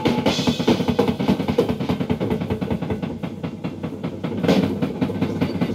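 Rock drum kit played solo in a live concert, taken from the audience: fast, dense strokes and rolls.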